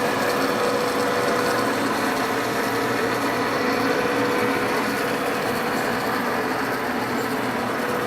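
Deckel FP2 universal milling machine running with its spindle turning: a steady mechanical whir of the gearbox with a constant hum-like tone through it.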